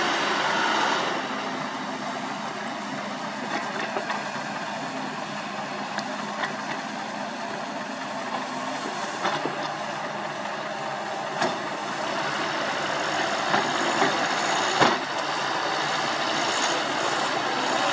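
Sany SY75C excavator's diesel engine running steadily as it works, with a few scattered metallic clanks and knocks.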